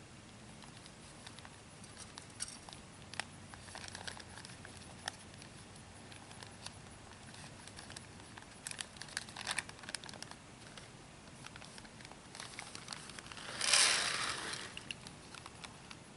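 Paper seed bag crinkling in the hands, with scattered light clicks, as zipper peas are put into a push planter's seed hopper. Near the end comes a louder rush of about a second as the peas pour into the hopper.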